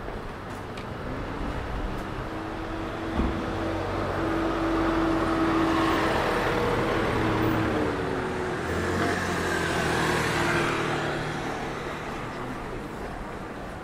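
Motor traffic passing close by, its engine and tyre noise swelling to a peak in the middle and fading near the end, with a single short knock about three seconds in.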